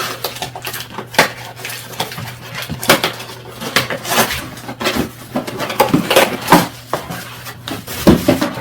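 Irregular clinks, clatters and knocks of metal parts being handled while a bike seat and seatpost are fitted, with a few louder knocks spread through.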